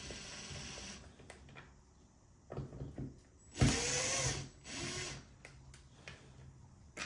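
A small cordless power screwdriver spinning in two short runs, each rising and falling in pitch, while backing out the screws on the back of a steering wheel, with a few light tool clatters before them.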